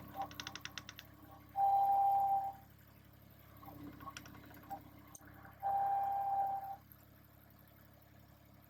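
Two steady electronic beeps at one pitch, each about a second long and some four seconds apart, with a quick rattle of clicks just before the first.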